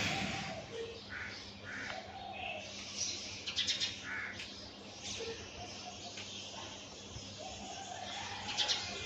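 Several birds calling and chirping over one another, short separate calls with quick clusters of chirps about a third of the way in and again near the end, over a faint steady hum.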